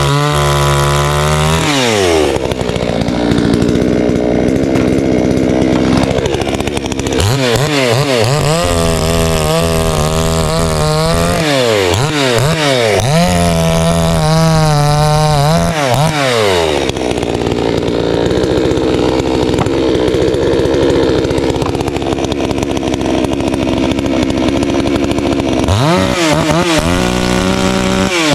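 Garwinner two-stroke gas chainsaw cutting through wood in two long stretches at high, steady revs, dropping back to a lower speed between cuts, where the throttle is blipped up and down.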